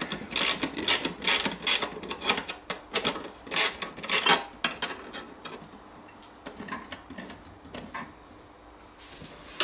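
Irregular clicks, knocks and scraping from a wooden saw-guide jig being handled, its bolts worked by hand and with a screwdriver. The sounds come thickly for the first few seconds, then thin out to a few faint clicks.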